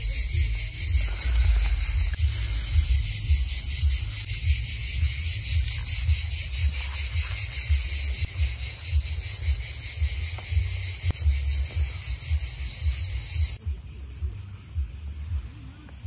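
A loud, continuous chorus of insects chirring with a fine rapid pulse, over a low uneven rumble. The insect sound cuts off suddenly near the end, leaving a quieter background.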